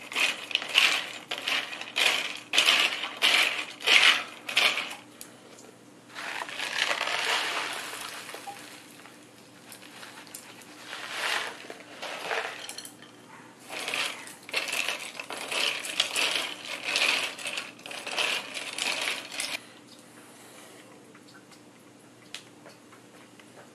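Crushed ice clinking and crunching against a glass beaker as an ice-and-salt bath is stirred and packed down, in several spells of rapid rattling that stop about three-quarters of the way through.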